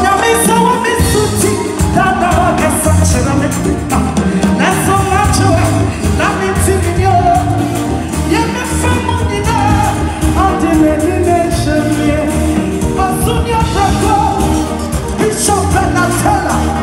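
Live gospel band music, amplified: a woman sings lead into a microphone over drums, bass guitar and keyboards.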